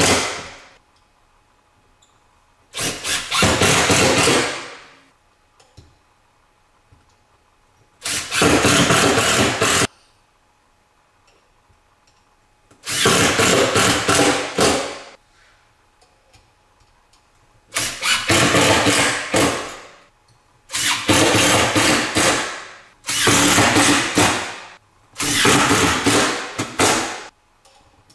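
Cordless drill-driver running in about seven separate bursts of a couple of seconds each, driving screws through spring-steel pipe-clamp clips into a wooden board. Each burst starts sharply and trails off as the screw seats, with short pauses between them.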